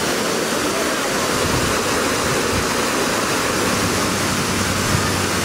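Gefion Fountain's water jets and tiered cascades splashing: a steady rush of falling water.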